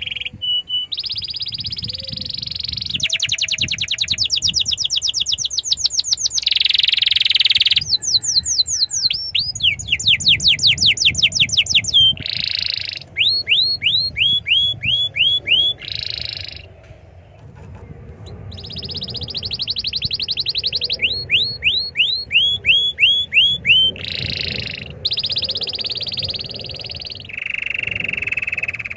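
Domestic canary singing: long runs of fast repeated notes alternate with buzzy rolls and rapid trills. There is a short lull about two-thirds of the way through.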